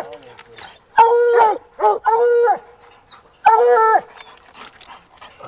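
Black and tan coonhound baying: four loud, drawn-out barks of about half a second each, one of them shorter, between about one and four seconds in.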